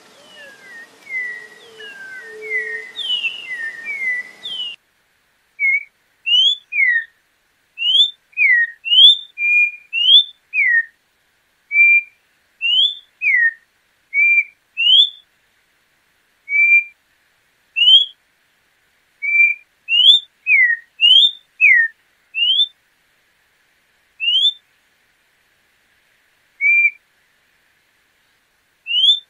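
Orange-backed troupial (João-pinto) singing: clear whistled notes, each a short rising or falling slur, given a few at a time with pauses between groups. The first five seconds are busier, with notes crowding over a background hiss, and the song thins out to a single note near the end.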